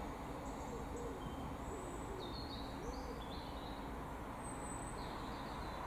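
A bird cooing low, a few arching notes in the first three seconds, with faint high chirps of small birds over a steady background hum.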